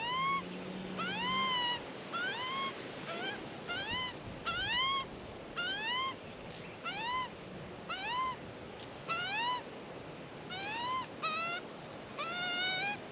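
Australian magpie chick giving a begging call: a short rising squawk repeated about one and a half times a second, on and on.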